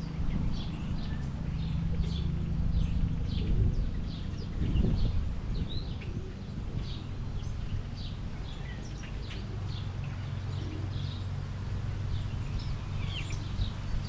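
Small songbirds at a feeder chirping with short, high calls, about two a second, over a steady low rumble.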